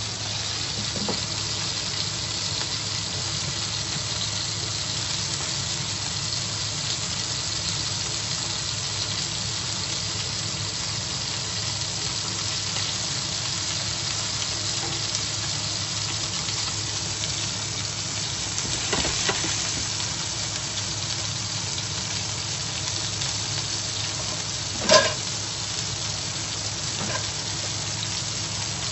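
Beef steak sizzling steadily in oil in a nonstick frying pan. A few faint clicks come a little before 20 seconds in, and one sharp knock about 25 seconds in.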